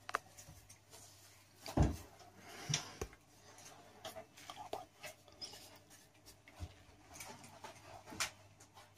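Potatoes being peeled with a small kitchen knife over a plastic cutting board: quiet scraping and small scattered clicks and knocks, the loudest a thump about two seconds in.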